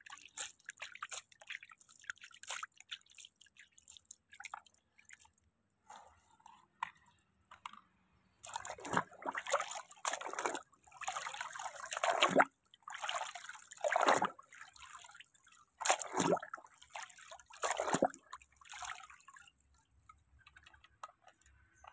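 A plastic toy car being dunked and swished by hand through muddy water. Light dripping and trickling at first, then from about eight seconds in a run of sloshing splashes, roughly one every second and a half, before it settles to drips again near the end.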